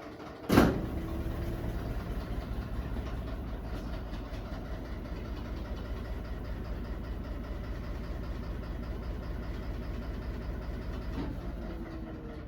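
LG WT7600HVA top-load washing machine running early in a cold-wash towel cycle. A loud click about half a second in starts a steady low hum with a rushing sound, which ends with a softer click near the end as the motor's gliding whine comes back.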